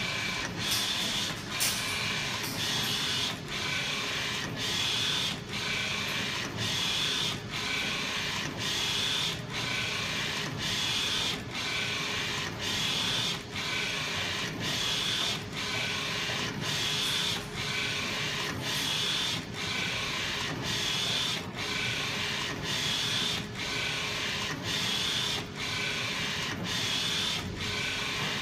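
Wide-format digital inkjet printer's print-head carriage shuttling back and forth across the sheet as it prints. It makes a steady whirring with a faint whine, broken by a brief dip at each reversal about every three-quarters of a second.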